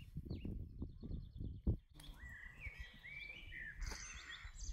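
Small songbirds outdoors: a few short falling chirps over low wind rumble on the microphone, then, from about two seconds in, a bird singing a run of short slurred whistled notes.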